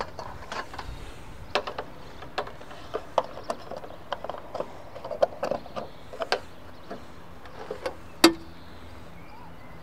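Scattered clicks and knocks of hands working a public EV charging bollard: its hinged socket flap opened and a plug pushed into the socket. One sharp clack about eight seconds in, the loudest sound, comes as the flap is shut.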